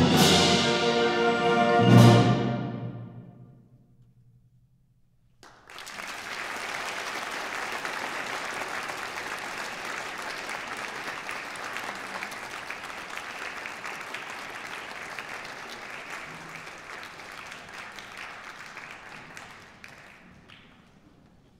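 A wind ensemble of brass and woodwinds holds its final loud chord, with a last sharp accent about two seconds in, then rings away into silence. A few seconds later the audience breaks into steady applause, which dies away near the end.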